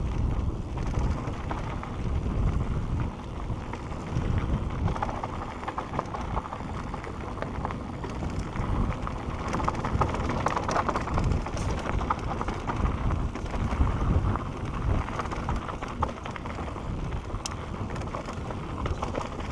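Full-suspension Santa Cruz Bronson mountain bike descending dirt singletrack at speed: a continuous rumble of tyres on dirt and wind on the camera, broken by frequent small clicks and rattles from the bike over roots and rocks.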